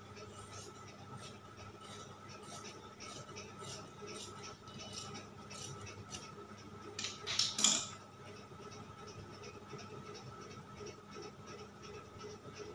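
Large metal fabric scissors cutting through cloth along a marked line, a steady run of snips about two or three a second, with a louder rasp of blades and cloth about seven seconds in, after which the cutting stops.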